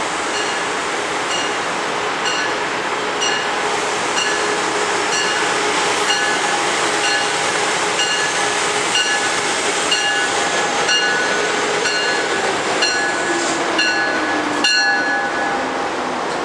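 Amtrak Acela Express high-speed electric trainset pulling in and slowing along the platform: a steady rumble with its bell dinging about twice a second. A thin squeal runs through the second half, and a whine falls in pitch near the end as the train slows.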